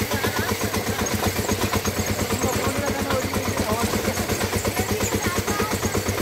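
Engine of the vehicle being ridden, running with a rapid, even chugging beat as it drives along a rough dirt road.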